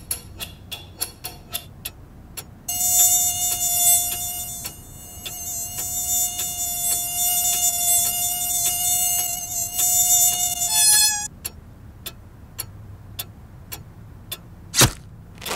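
A cartoon mosquito's wing whine in flight: a steady, high buzzing tone starting about three seconds in and lasting about eight seconds. It briefly jumps up in pitch just before it cuts off. Sparse sharp clicks come before and after it, with one louder click near the end.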